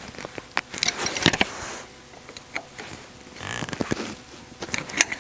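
Channel-lock pliers clicking and scraping on the steel shaft nut and lock tab of a Porsche 902 transmission input shaft as the tab is bent over. It is a run of sharp metal clicks with two short scraping rasps, about a second in and again just before four seconds.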